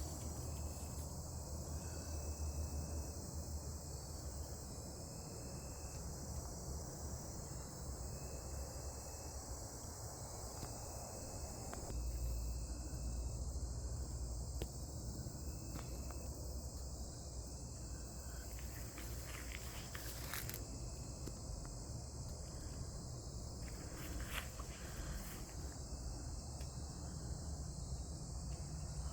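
Insects trilling steadily outdoors in a continuous high-pitched chorus, with a low rumble underneath and a few scattered knocks.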